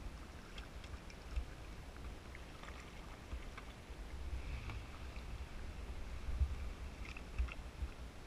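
Kayak paddling: soft splashes and drips of water from the paddle blades, heard as scattered small ticks, over a low steady rumble.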